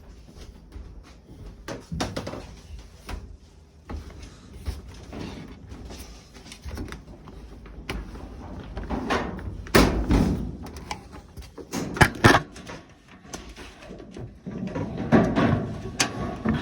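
Irregular knocks, clunks and scrapes from a Kenmore electric dryer's sheet-metal cabinet being handled and moved, the loudest a little under ten seconds in, twice around twelve seconds and again near the end.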